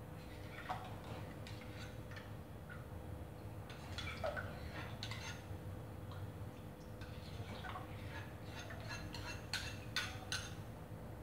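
Faint, scattered clinks and taps of a metal ladle against a small porcelain bowl as melted gelatin is scraped out and poured into a bowl of milk, a few taps a little sharper about four seconds in and near the end.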